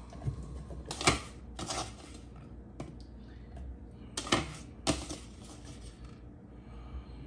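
Light knocks and clatters of loose fruit being handled: berries and grapes scraped out of a wooden bowl and dropped into the feed chute of a juicer. A few separate sharp knocks, a pair about a second in and another pair around four to five seconds in.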